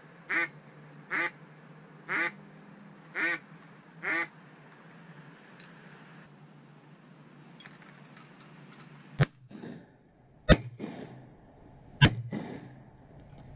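Five duck quacks, about one a second. Then, from about nine seconds in, three loud shotgun shots roughly a second and a half apart.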